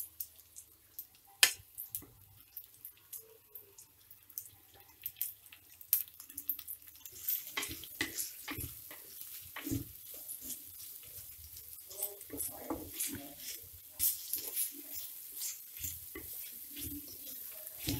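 Wooden spatula knocking and scraping against a clay cooking pot as sliced onions are stirred, with a light sizzle of the onions frying in coconut oil. One sharp knock about a second and a half in; the stirring clatter and sizzle grow busier from about halfway.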